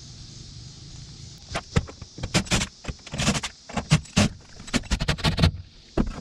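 Clattering and rattling of old wiring and connectors being handled and pulled out, an irregular run of sharp clicks for about four seconds with one last click near the end, over a steady high-pitched hiss.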